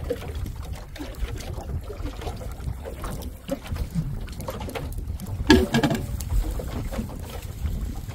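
Wind buffeting the microphone and water moving against the hull of a small open fishing boat at sea, a steady low rumble, with a brief louder noise about five and a half seconds in.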